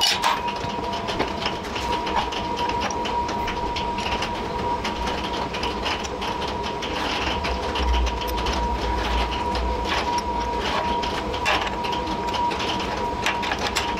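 Laser-cut steel plates of a Nasty Tools Octagon fixture clinking and scraping against each other and the perforated steel welding table as they are slotted together, many small clicks over a steady hum.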